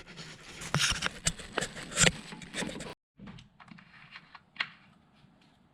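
Rustling and clicking handling noises with many sharp clicks, cutting off abruptly about three seconds in, followed by fainter scattered clicks.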